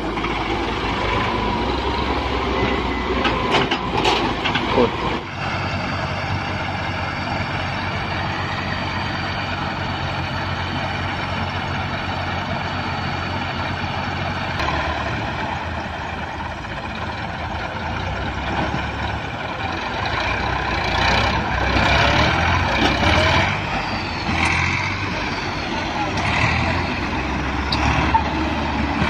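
Diesel engines of tractors and a wheeled excavator running steadily under load, the engine note changing a few times, with a few knocks.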